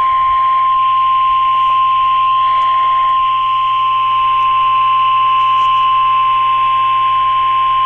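NOAA Weather Radio warning alarm tone: a single steady 1050 Hz tone, held loud and unbroken over a background of radio hiss. It signals that a weather warning is about to be broadcast.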